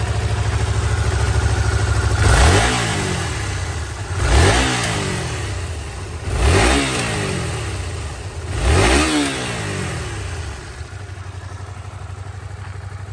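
Honda VTR250's V-twin engine idling, blipped four times about two seconds apart, each rev rising quickly and dropping back to idle, then idling steadily for the last few seconds.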